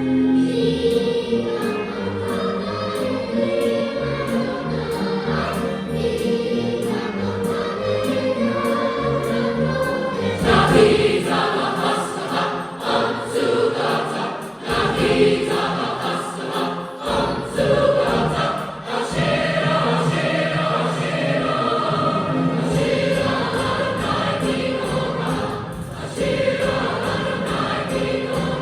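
Choir singing a song, with the sound growing fuller from about ten seconds in.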